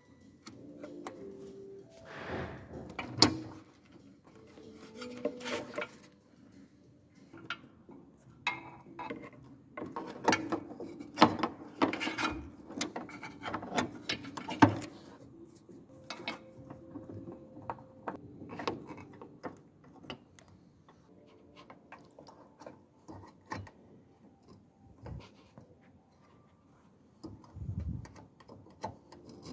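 Handling noises from a car headlight's bulb fitting during a bulb change: irregular clicks, knocks and rubbing of the plastic bulb connector and wire retaining clip, with a few sharper clicks and a low thud near the end.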